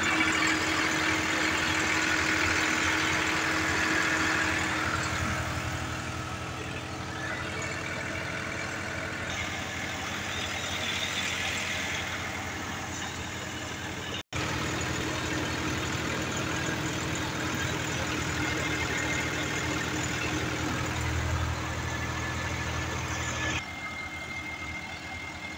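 Massey Ferguson 260 tractor's diesel engine running steadily under load, driving a thresher whose drum and fan add a continuous whirring din. The sound drops out for an instant about halfway through.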